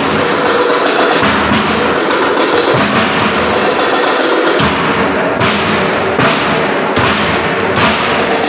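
Loud drum-heavy music with a steady, quick beat.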